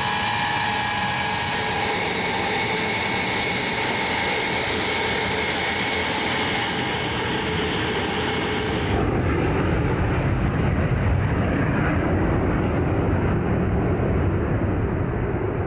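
Ilyushin Il-76MD military transport's four D-30KP turbofan engines running on the ground with a steady high whine. About nine seconds in it changes abruptly to the louder, deeper rumble of the jet climbing away after takeoff.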